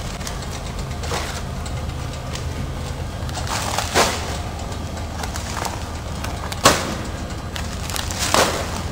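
Autompack ATM 380D automatic powder packing machine and its discharge conveyor running with a steady low hum, broken by three sharp clacks about four, six and a half and eight seconds in.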